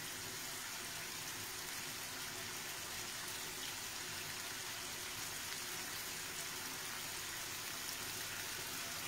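Faint, steady sizzle of a skillet of artichokes and guanciale simmering in a little water and oil on a gas hob.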